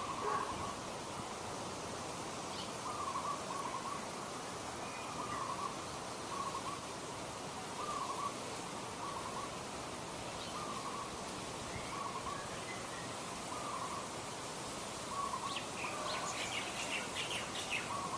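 A bird calling over a steady hiss of background noise, with short doubled notes repeated every one to two seconds. Faint higher chirps join near the end.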